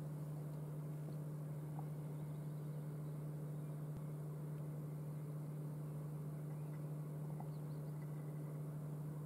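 Steady low hum holding one pitch over a faint hiss, unchanging throughout.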